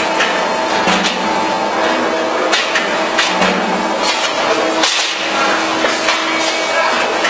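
Automatic sandpaper disc-cutting press running: a steady machine hum with irregular sharp knocks and clacks about once a second as it stamps discs out of the abrasive sheet.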